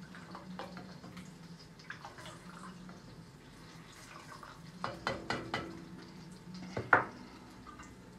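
Ladle stirring thick molokhia soup in an enamel pot, with faint wet sloshing and small clicks. A few sharp knocks of metal utensils against the pots come about five seconds in, and a louder clank near seven seconds. A steady low hum runs underneath.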